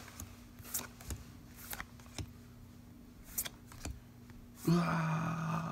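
Trading cards snapping and sliding against each other as they are flipped through by hand, with sharp irregular clicks about once or twice a second over a low steady hum. Near the end comes a loud, drawn-out excited shout.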